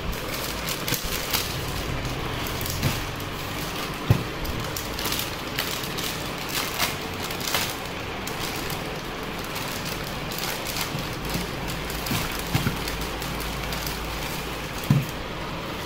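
Clear plastic packaging bags crinkling and rustling as they are handled and opened, a continuous crackle with a few sharper knocks.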